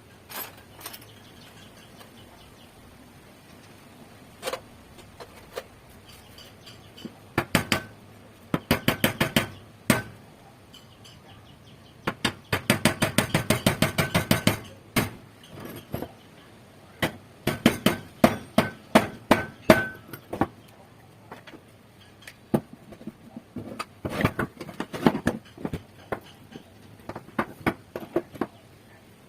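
Hammer striking metal parts of a rusted M6 survival rifle/shotgun with a light metallic ring. The blows come in runs of quick taps with pauses between, the longest and fastest run about halfway through at roughly eight or nine blows a second.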